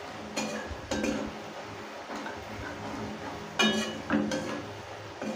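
Metal spatula scraping and clinking against a metal kadai while stirring an onion and spice masala, in a few separate strokes, the loudest about three and a half seconds in.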